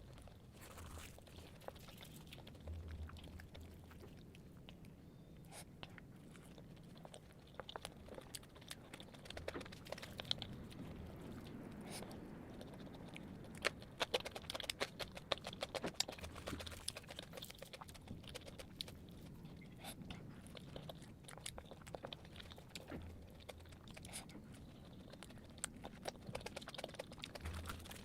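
Close-miked chewing and biting of fried flatbread with potato curry: moist mouth sounds with many small crunchy clicks, busiest from about ten to sixteen seconds in.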